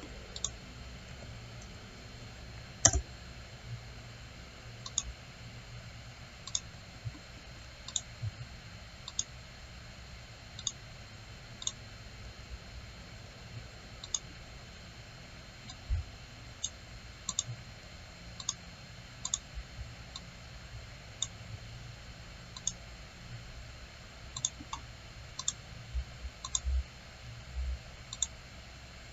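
Computer mouse clicking: single sharp clicks at irregular intervals of about one to two seconds, one louder near three seconds in, over a low steady hum.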